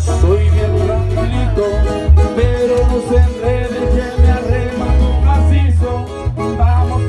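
A live corrido band playing over PA speakers: acoustic-electric guitar strummed over a pulsing bass line, with a voice singing.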